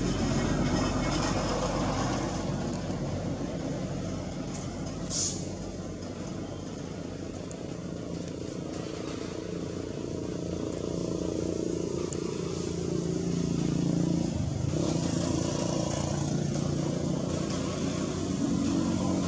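Steady low rumble of motor vehicles in the background, a little louder in the last few seconds, with one brief high-pitched squeak about five seconds in.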